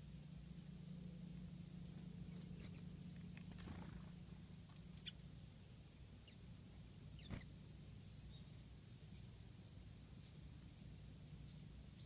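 Faint, short high-pitched chirps of small songbirds, Japanese white-eyes and a Japanese bush warbler at a feeder, scattered through, with two sharper ticks about four and seven seconds in, over a low steady hum.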